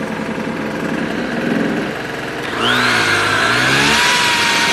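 Small two-stroke engine of a United Power GG950DC portable generator running steadily. About two and a half seconds in, the electric drill plugged into it starts with a rising whine that settles to a steady pitch, and the engine's note dips and then recovers as it takes the load.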